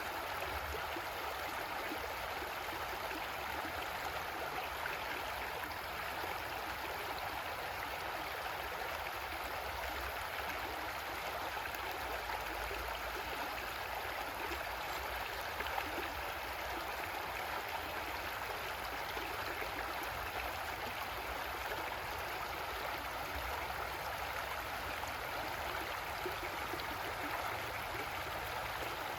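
Creek water flowing and burbling steadily over rocks, a constant rushing with no pauses.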